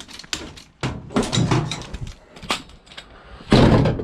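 Scrap metal being handled and loaded: a run of irregular clanks and knocks, with one louder, longer crash of metal near the end.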